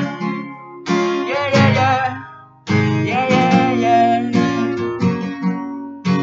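Acoustic guitar strummed with a capo on the neck. Over it a man sings long held notes, once about a second in and again about three seconds in.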